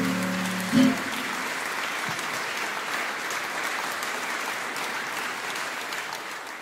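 An acoustic guitar piece ends with a final accented chord about a second in, then an audience applauds steadily.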